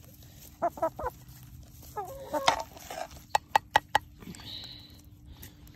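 Chickens clucking: a few short clucks, then a longer, bending call, followed by a quick run of about five sharp taps.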